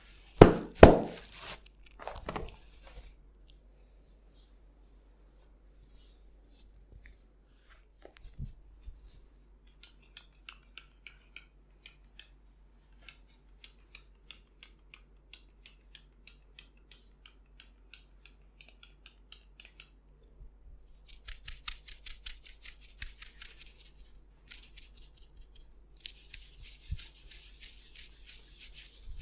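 Close-miked hands-on head massage: a few loud thumps at the start, then a run of light, evenly spaced clicks about two a second, then hands rubbing over hair and skin in two spells near the end.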